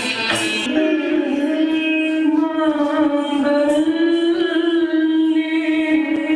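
Odissi dance accompaniment: a percussion rhythm breaks off about a second in, and a singer takes over with a long held, slowly gliding sung line over faint percussion.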